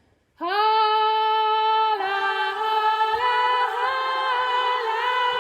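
Upper-voices choir singing, entering together about half a second in on long held notes in at least two parts that move by small steps in pitch.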